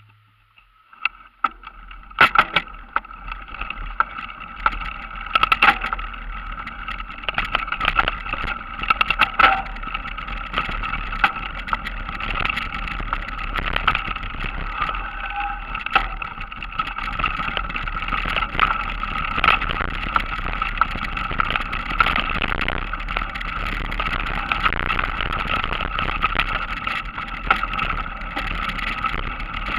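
Trek X-Caliber mountain bike ridden fast over a rough forest trail: a steady hum of rolling tyres, with frequent sharp rattles and knocks as the bike hits bumps. It starts from near quiet and grows louder as speed builds.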